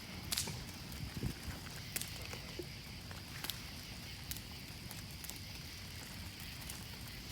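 A big cardboard box burning in an open fire: a steady low rumble with sharp crackles and pops every second or so.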